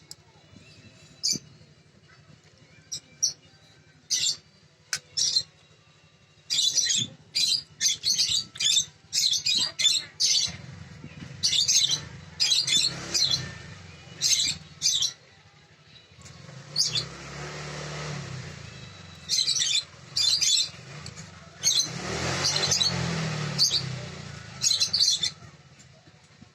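Birds chirping in many short, sharp calls, repeated in quick clusters. A rushing noise with a low hum swells and fades three times underneath.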